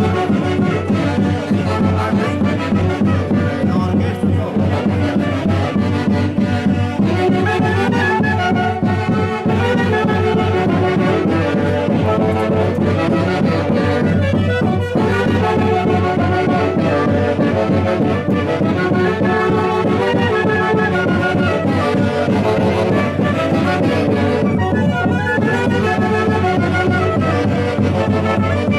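Festive band music from a Huancayo orchestra, playing without a break, with several melodic instruments over a steady beat.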